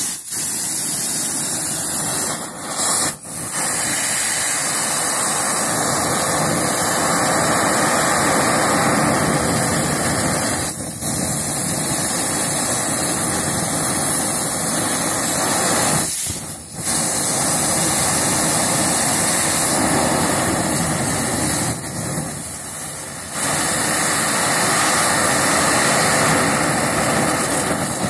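Compressed air from an air compressor blasting through a metal lance into a burning tree stump: a loud, steady rushing hiss that fans the embers into flame to burn the stump out. It starts abruptly and breaks off briefly three or four times.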